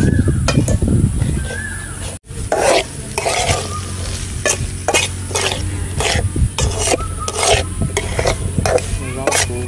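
Metal spatula scraping round a blackened wok, stirring diced vegetables frying in oil over a wood fire. Repeated scrapes, about two a second, over a light sizzle.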